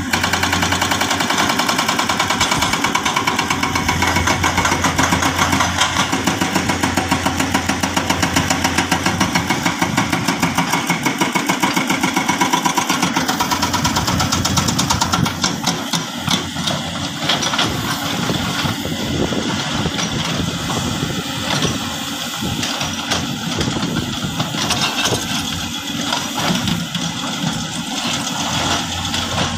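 Heavy diesel earthmoving machinery running at a construction site. For the first half it pulses about three times a second, then about halfway through it settles into a more irregular, slightly quieter running.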